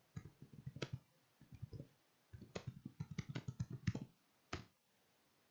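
Typing on a computer keyboard: quick runs of keystrokes in several bursts, with a lone keystroke near the end.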